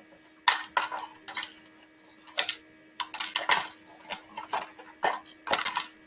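Irregular light clicks and clatters of wooden toothpicks, a clothespin and tweezers knocking against clear plastic tubs as toothpicks are picked up one at a time and dropped into a container, with short quiet gaps between.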